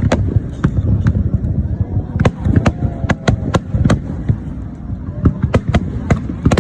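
Fireworks display: a rapid, irregular run of sharp bangs and crackles, several a second, over a steady low rumble.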